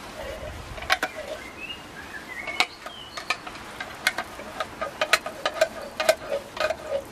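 Knife chopping canned corned beef: a run of sharp, irregular knocks that come about twice a second in the second half. Small birds chirp in the background.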